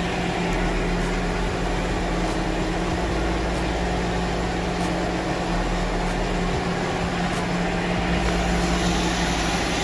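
A motor running steadily: a constant hum with a low buzz that neither rises nor falls.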